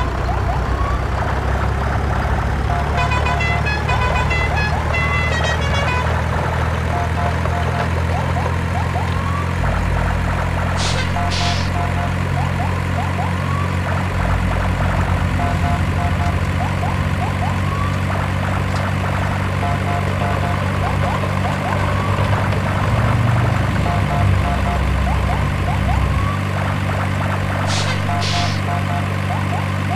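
A truck engine sound running steadily under a short electronic beeping tune that repeats every two to three seconds. Twice a brief sharp double sound cuts through.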